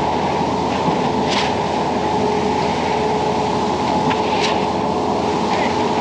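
Concrete pump truck running steadily during the pour, a constant mechanical drone with a steady hum. Short sharp hissing sounds come about every three seconds.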